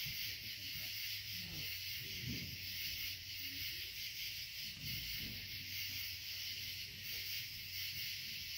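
Steady high-pitched chorus of night insects, with faint low murmurs of voices underneath.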